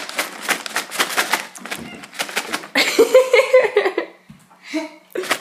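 Quick light clicks and taps of a cat's claws on a hardwood floor as it walks, with a short voice-like sound about three seconds in.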